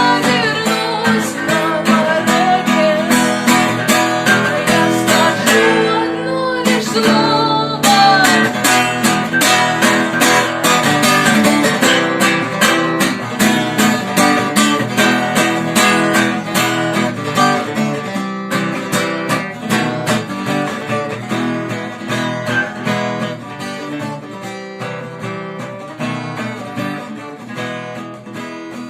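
Acoustic guitar strummed in a steady rhythm, with singing over roughly the first eight seconds; the music grows gradually quieter toward the end.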